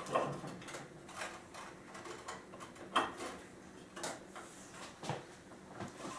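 Light clicks and knocks from a steel cable and turnbuckle being handled against a wooden chair backrest, roughly one a second, the loudest at the start and about three seconds in.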